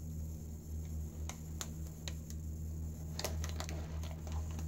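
Scattered light clicks and ticks of fingers handling a hard puck of shaving soap, over a steady low hum.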